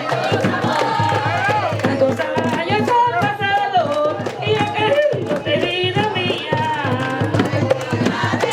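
Panamanian tamborito: hand drums beating a driving rhythm under sung voices, with many sharp drum strikes throughout.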